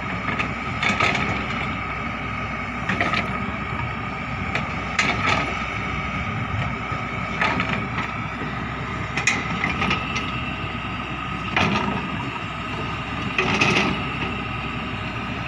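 Hyundai excavator running steadily with a constant whine, broken by a short knock or clank about every two seconds as it digs.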